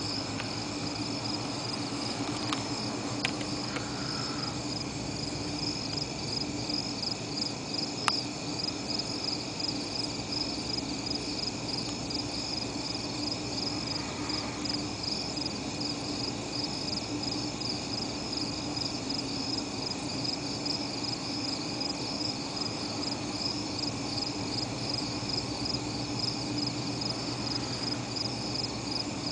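Night insects chorusing: a steady, fast-pulsing high trill with a low steady hum beneath. A few sharp clicks sound a few seconds in and again about eight seconds in.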